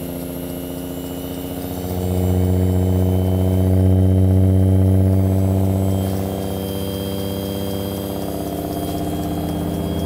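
Home-built air raid siren running at low speed, its rotor driven by a universal washer motor, giving a steady low resonant tone with a stack of overtones. It swells louder about two seconds in and eases back about six seconds in. It is held below full speed because the rotor still needs balancing.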